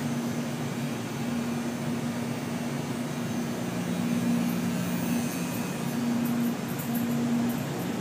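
Steady hum and whir of a chiller plant room's running machinery: water chillers and electric motor-driven circulating pumps. A low two-tone drone sits under an even mechanical rush, swelling and easing slightly.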